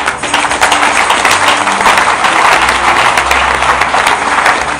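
Church congregation applauding: many hands clapping at once, starting suddenly and staying loud, with music playing softly underneath.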